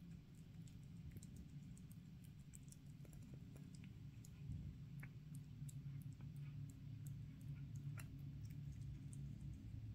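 Kitten suckling and licking at a plastic food dish: faint, quick little mouth clicks scattered throughout, over a low steady hum.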